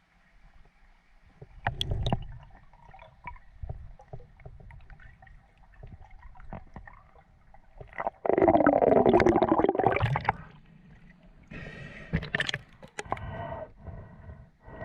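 Water gurgling and bubbling with scattered knocks and splashes, and a loud bubbling gush from about eight to ten seconds in.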